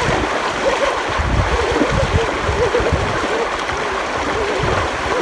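Shallow river rushing over rocks, a steady noise of running water, with splashing from feet wading through it.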